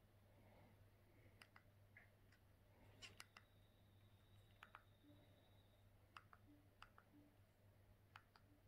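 Near silence with a low steady hum, broken by faint sharp clicks, often in quick pairs, every second or two: remote-control buttons being pressed to exit the IPTV app and go back to the TV home screen.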